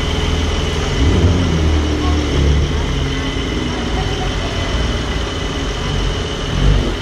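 Porsche 992 Turbo S's twin-turbo flat-six running at low revs through an Akrapovic titanium exhaust as the car pulls away slowly, a low steady drone that swells slightly about a second in and again near the end.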